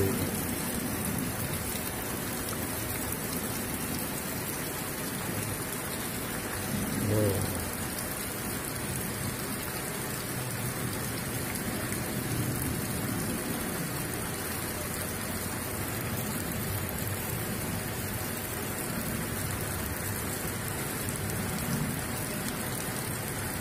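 Heavy rain falling steadily on wet brick paving and the top of a street-food cart, with a short burst of a person's voice about seven seconds in.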